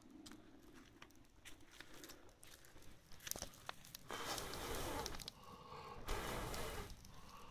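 Burning hay crackling with scattered sharp snaps. Two louder stretches of rushing noise come about four and six seconds in.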